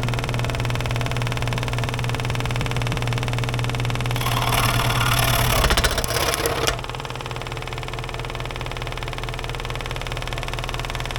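Bandsaw motor running steadily; from about four seconds in to nearly seven seconds the blade cuts through a cork rod handle with a louder, noisy hiss, then the saw runs on freely.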